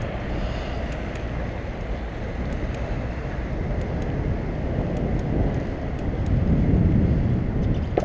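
Wind rushing over the microphone, mixed with city traffic, while riding a bicycle; it swells louder about six seconds in.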